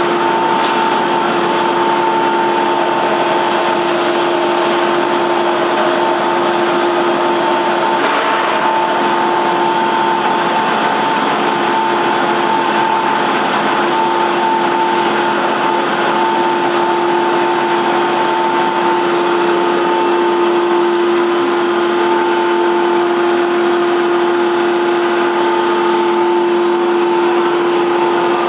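Large Toyoda CNC lathe running steadily: an even machine hum with two steady whining tones held at one pitch throughout.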